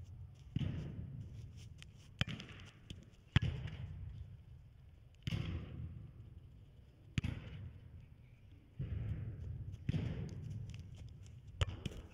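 A soccer ball being kicked and passed back and forth on artificial turf in a large indoor hall. There are several sharp kicks a second or two apart, each echoing off the hall.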